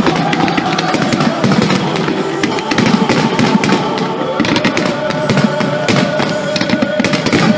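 Fireworks display: a rapid, dense run of aerial shell bursts and crackling, over music played through loudspeakers in time with the show.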